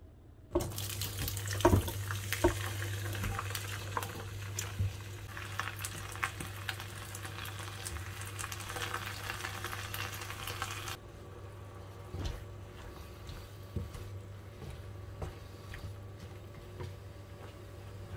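Chopped cabbage, bok choy and zucchini sizzling in a hot frying pan, with clicks and knocks from the vegetables and utensils against the pan. The sizzle drops away sharply about eleven seconds in, leaving a quieter hiss, a steady low hum and occasional knocks.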